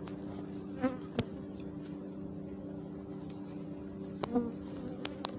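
A defensive honey bee colony buzzing thickly around an opened hive: a steady multi-toned drone, with single bees swelling louder as they fly close past, and a few sharp clicks. The bees are agitated, which the beekeeper takes for Africanized bees.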